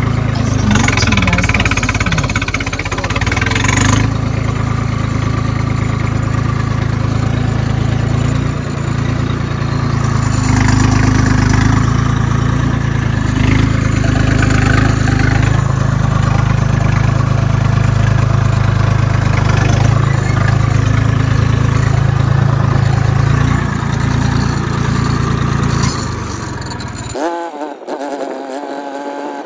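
Swaraj tractor's diesel engine running steadily under load while the tractor spreads heaps of cow-dung manure with a rear blade, heard from the driver's seat. Near the end the sound cuts to a thinner, more distant engine sound that rises and falls in pitch.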